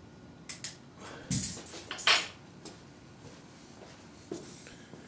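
Metal clatter of a throwing hammer and its attached bar being let down onto the gym floor: a couple of light clicks, then a few clanks, the loudest about two seconds in.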